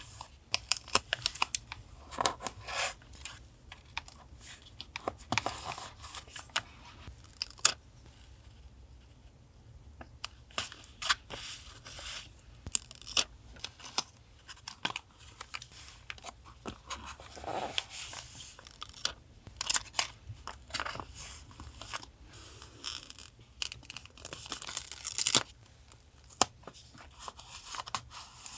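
Paper being handled, torn and rustled for a journal collage: irregular crisp tears, crinkles and small clicks, with a brief lull about a third of the way in. A steady faint low hum runs underneath.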